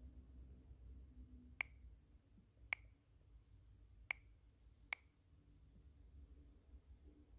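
Four short, sharp clicks over near silence, spread unevenly across about three seconds: taps on a phone touchscreen.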